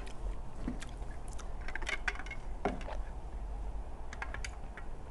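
Sipping a drink through a straw from a plastic tumbler, with scattered small clicks and taps as the cup and tableware are handled.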